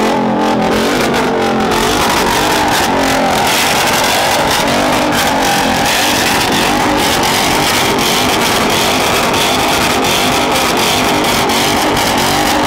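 A loud vehicle engine running and revving, its pitch rising and falling, with irregular crackles over it.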